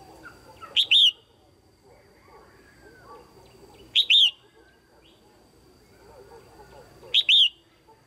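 Female red-whiskered bulbul calling: three loud, short calls about three seconds apart, each a quick double note, over faint background chatter.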